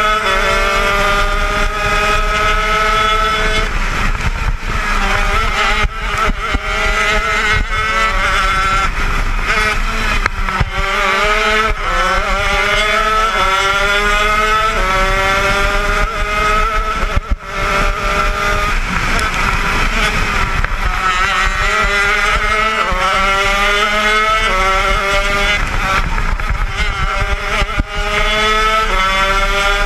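80cc two-stroke shifter kart engine at racing speed. Its pitch climbs through each gear and drops at each shift, falls back when it eases off for corners, then climbs again, over and over.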